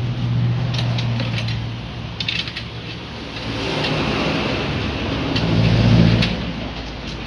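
Metal tongs clicking and clinking against hot metal baking moulds in a wood-fired oven, in small clusters, over a loud low motor-like hum that swells near the end.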